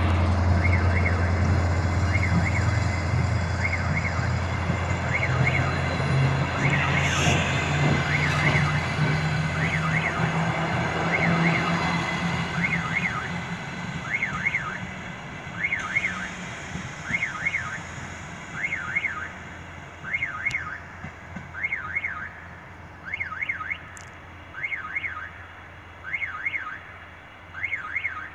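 Railway level-crossing warning signal sounding a pair of electronic warbling tones about every 1.3 seconds. Beneath it a diesel multiple unit's engine drones as the train pulls away, fading over the first dozen seconds.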